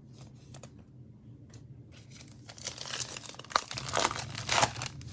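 A foil wrapper on a 2021 Illusions football card pack being torn open and crinkled by hand, in a run of crackling bursts over the last couple of seconds. Faint clicks of cards being handled come before it.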